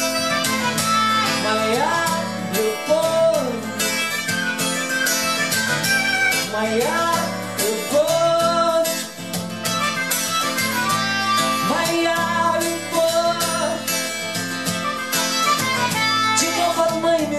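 Harmonica solo with notes bent up and down, over a steadily strummed acoustic guitar, in the instrumental break of a song.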